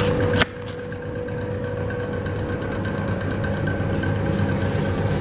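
Steady low mechanical hum. A sharp click about half a second in, after which the hum drops in level and slowly builds again.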